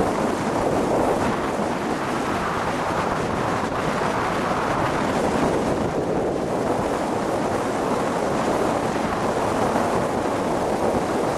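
Steady wind rushing over the microphone, mixed with the wash of water and the running of a moving cruise boat.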